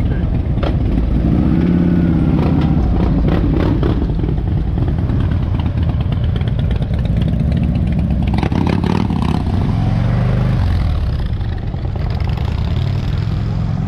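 Motorcycle engines running as cruiser bikes ride off. The engine note rises and falls twice, about a second in and again around eight seconds in, as bikes accelerate away.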